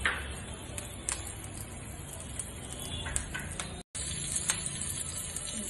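Cumin seeds and chopped green chillies sizzling in hot oil in a frying pan, a steady hiss with a few light clicks; the sound drops out for a moment about four seconds in.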